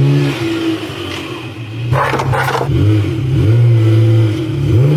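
Mercedes G36 AMG's 3.6-litre straight-six engine running, its pitch dipping and rising several times as it is revved. A short rush of noise comes about two seconds in.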